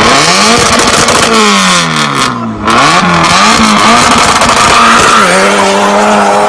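Car engine revving up and falling back again and again while the tyres squeal in a burnout or drift, with a short break in the squeal about halfway through. Near the end the engine holds a steady high note.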